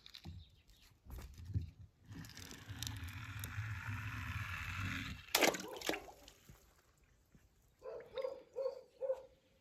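Small plastic toy monster truck rolling down a glitter-covered ramp with a steady rough hiss, then a single loud splash as it drops into a swimming pool about five seconds in. Near the end a dog gives several short barks.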